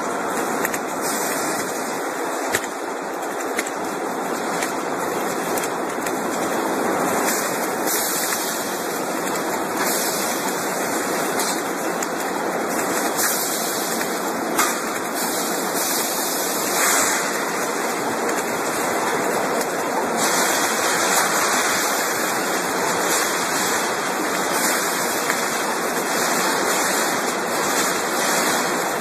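Steady hissing noise of a spark-throwing welding machine working on a rotating round steel pile cage, with a few sharp clicks.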